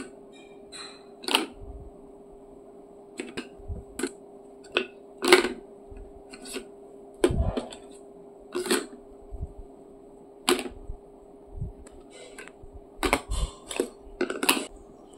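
Plastic rings of a ring-stacking toy clacking against each other and the post as a toddler handles them: sharp, irregular clacks, about a dozen, over a steady low hum.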